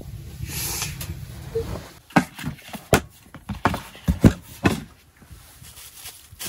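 A run of short, sharp knocks and clatters, about ten over three seconds, from kitchen things being handled on a camp table, including a plastic basin.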